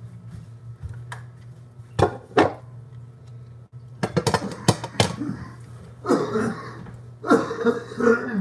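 Kitchen clatter: plastic squeeze bottles and utensils knocking and being set down around a pancake griddle, a few sharp knocks and a quick run of clicks, then two longer scraping noises near the end, over a steady low hum.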